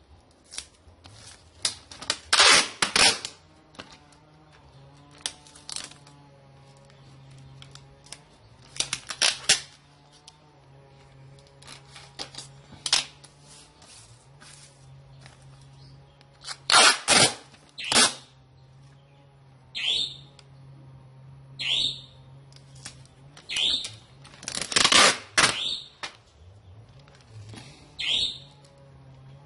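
Handling and packing noises: irregular sharp clicks and crinkles of small objects and packaging, louder in a few clusters, with several short squeaks that sweep downward near the end, over a low steady hum.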